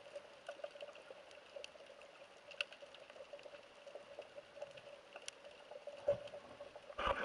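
Underwater ambience picked up by a submerged camera: a faint steady hum with scattered small clicks and crackles. A louder rush of water noise starts near the end.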